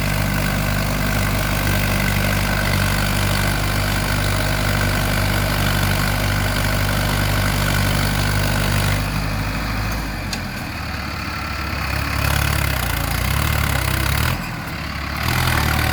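Heavy diesel engine of a tractor or backhoe loader running at a steady idle; about nine seconds in it changes to a lower, uneven engine note that rises and falls.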